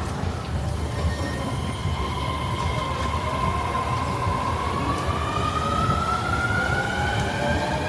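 Electric train running through the station: a steady low rumble under a high whine that rises slowly in pitch over several seconds.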